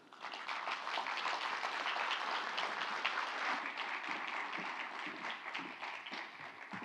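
Audience applauding, starting right away and dying down near the end.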